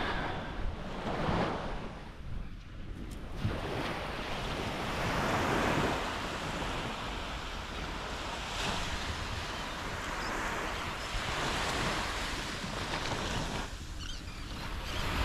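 Small waves washing onto a sandy beach, swelling and easing every few seconds, with some wind rumble on the microphone.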